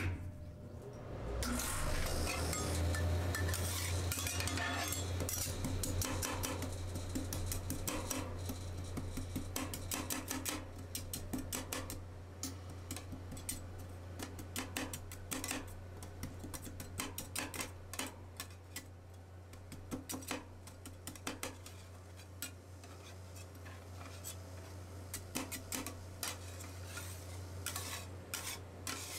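Two steel spatulas chopping and scraping Oreo cookies in liquid ice cream base on a stainless steel cold plate: quick clicks and taps of steel on steel, busiest and loudest in the first third. A steady low hum from the rolled-ice-cream machine's freezing plate runs underneath.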